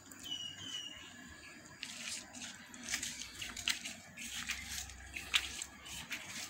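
Birds chirping: a few short whistled calls in the first second, then a busy run of quick, sharp chirps from about two seconds in.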